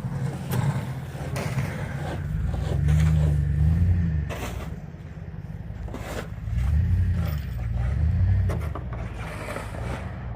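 A vehicle engine rising and falling in revs, swelling twice, with scraping and crunching sounds over it.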